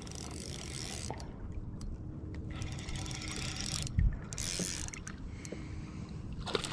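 Fishing reel cranked in bursts, its gears whirring, as a hooked fish is reeled in to the boat. A short knock comes about four seconds in.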